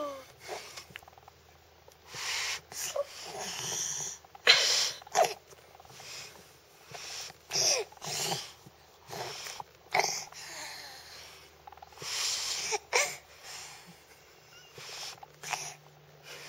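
Baby's breathy vocalising: short huffs, squeals and coos coming irregularly, a dozen or so, some sliding briefly in pitch, over a faint steady low hum.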